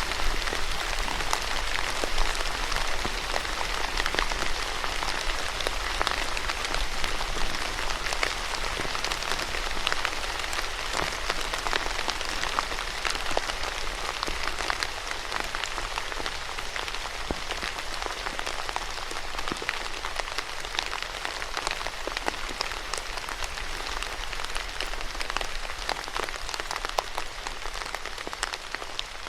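Steady rain falling on a surface: a continuous hiss dotted with many individual drops tapping.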